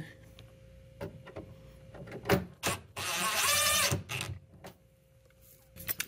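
Cordless DeWalt drill spinning a screw in a refrigerator's steel hinge bracket: a couple of sharp clicks, then a high motor whine that runs about a second and stops.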